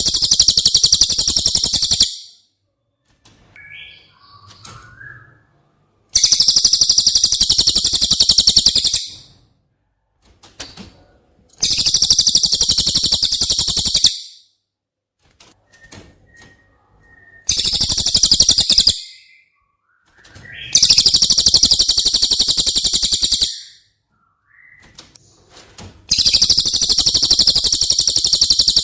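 Cililin song: very high, rapid trills of about two to three seconds each, repeated every five to six seconds, with faint short chirps in the gaps.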